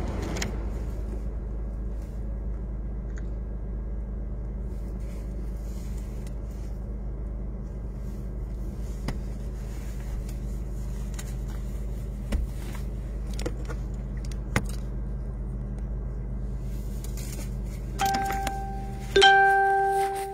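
Steady low hum of a car engine idling, heard from inside the cabin, with a few small clicks and knocks from handling. Near the end a clear pitched tone sounds twice, the second one louder.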